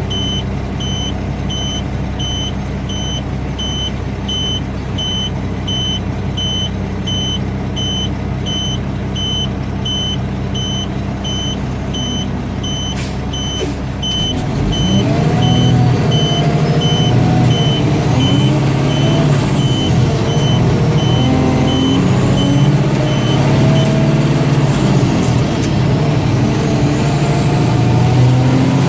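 Mack DM690 concrete mixer truck's backup alarm beeping about twice a second over its steadily running diesel engine. About halfway through the beeping stops and the engine gets louder, its pitch rising and falling.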